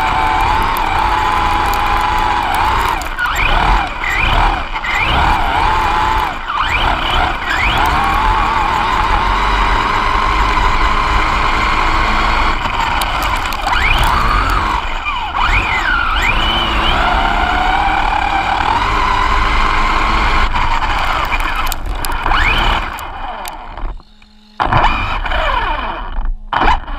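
RC car's motor running hard, its whine repeatedly sweeping up and down in pitch with the throttle over the rush of tyres on a loose dirt track. Near the end it eases off and quietens, briefly almost cutting out.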